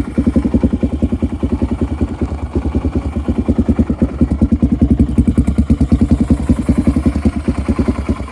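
1998 Yamaha XT350's single-cylinder four-stroke engine idling just after starting, with a rapid, even chain of firing pulses. This idle won't hold: the owner says it always dies within 5 to 20 seconds unless the throttle is held near 3,000 RPM.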